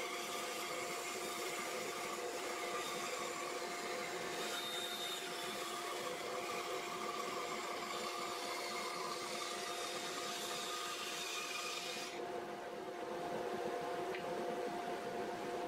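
Rikon bandsaw with a 6-tooth skip blade cutting through a 2x4 block, a steady motor hum under a hissing cutting noise. About twelve seconds in the cut ends and the saw runs on with only its hum.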